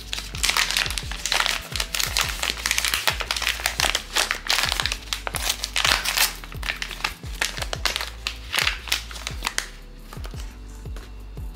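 Plastic blind-box packaging crinkling and rustling as it is handled, stopping about two seconds before the end, over background music with a steady bass line.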